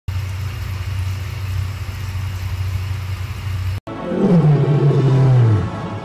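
Steady hum of an aquarium pump running in a frog breeding tank, with an even hiss over it. About four seconds in it cuts off, and a louder deep tone with a rasp falls slowly in pitch for about a second and a half.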